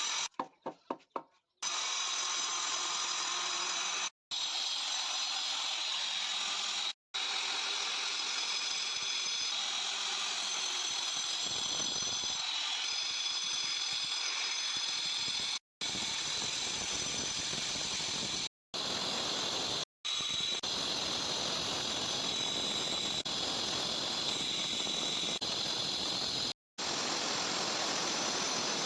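Power stone-cutting machine running with its blade grinding through stone, a steady high whine over a dense gritty noise that gets heavier about twelve seconds in. The sound stutters near the start and drops out briefly several times.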